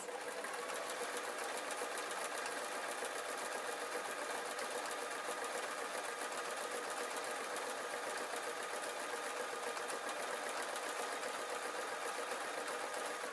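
Singer domestic sewing machine running steadily at a constant speed, with a fast, even stitching rhythm as it sews a strip of fake fur onto tartan fabric.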